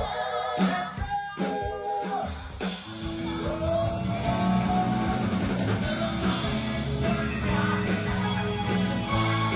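Worship song with singing over electric guitar and drum kit; sparse drum hits at first, then the full band comes in about two to three seconds in, under a long held sung note.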